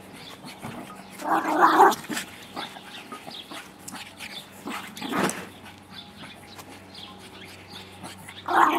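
A dog gives two short, loud calls, one about a second in and another near the end, with a quieter, sharper sound between them.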